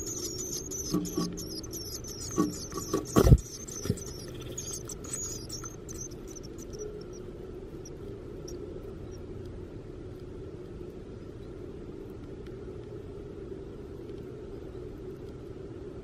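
Black-capped chickadee nestlings begging with rapid, high-pitched chirping for the first several seconds, then falling quiet. There are a few knocks inside the wooden nest box, the loudest a thump about three seconds in, and after that only a steady low hum.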